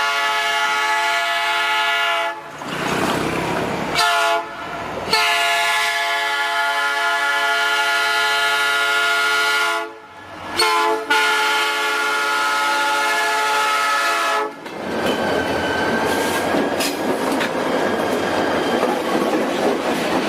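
Locomotive horn sounding in a series of long blasts with short breaks, including a brief blast about four seconds in. In the last five seconds or so the horn stops and the rumble and hiss of the train running over the rails takes over.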